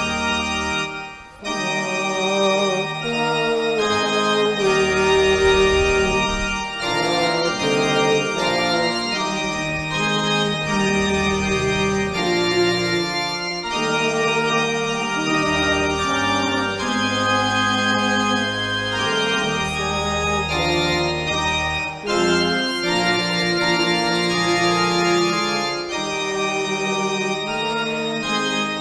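Organ playing slow, sustained chords over a bass line that comes and goes, with a brief dip about a second in.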